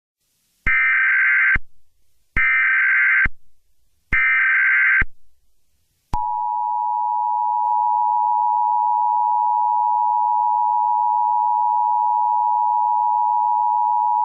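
Emergency Alert System SAME header: three short bursts of screechy digital data, about a second each, marking the start of an alert. A steady two-tone EAS attention signal follows and holds for about eight seconds, warning that an emergency message follows.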